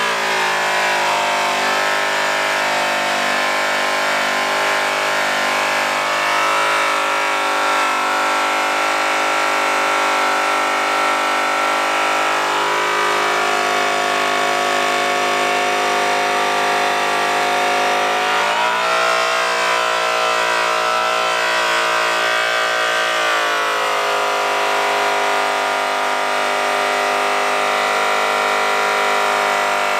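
Makita high-speed polisher motor running steadily as its orange cloth buff cuts an aluminum truck wheel with compound. The motor whine sags and shifts in pitch a little under halfway through and again about two-thirds through, as pressure on the buff changes.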